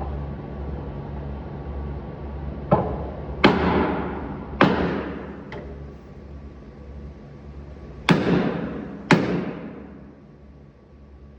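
Six sharp knocks in two groups, four and then two, each trailing off in a ringing decay, over a steady low hum.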